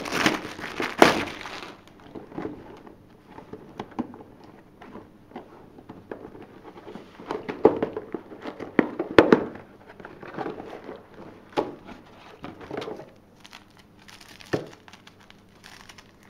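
Clear plastic shrink-wrap being torn off and crumpled, then a cardboard box being opened: irregular crinkling, crackling and sharp clicks. The crinkling is densest in the first two seconds, with louder clusters of crackles near the middle.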